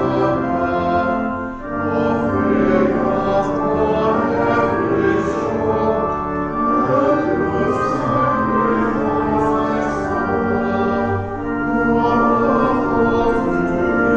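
A hymn sung with an instrumental accompaniment, in held notes and chords.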